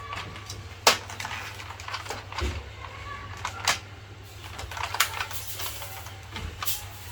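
Hard plastic clicks and knocks from a Nerf Alpha Hawk blaster being handled and worked while loading it, irregular and spread out, the sharpest about a second in.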